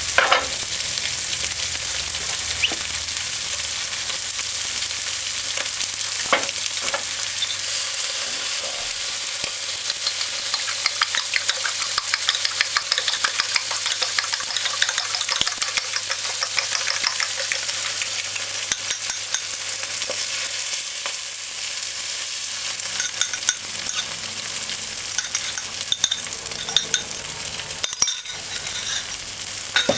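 Onion, tomato, sweet pepper and sardine frying in oil in a pot: a steady sizzle with constant fine crackling and a few sharp clicks.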